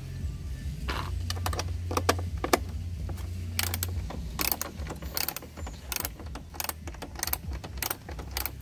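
Hand socket ratchet clicking in short, quick runs of clicks, loosening the bolts on a riding mower engine's shroud.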